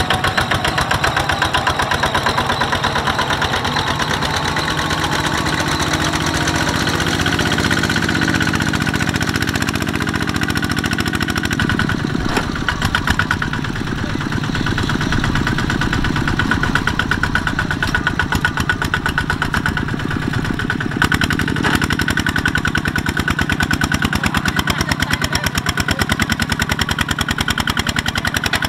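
Single-cylinder diesel engine of a two-wheel walking tractor running under load as it hauls a trailer of rice sacks through deep mud, with a rapid, even chugging.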